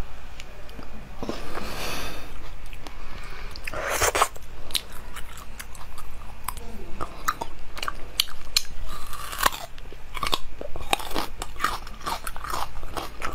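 Close-miked biting and chewing of a slice of watermelon-like food, with many crisp crunching clicks that come thicker in the second half.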